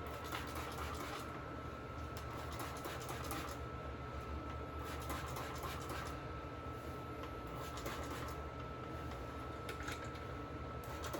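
Faint scratching and rustling of hands working a spray-on moisturizer into locs, in irregular clusters over a steady faint electrical tone.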